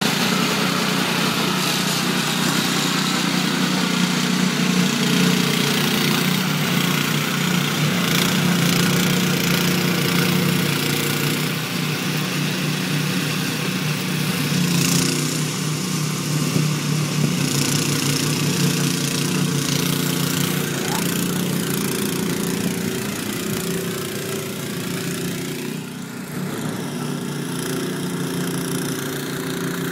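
Toro Power Clear 621 QZE single-stage snowblower running steadily under load, its small four-stroke engine holding speed while the auger chews into deep snow and throws it out of the chute with a steady hiss.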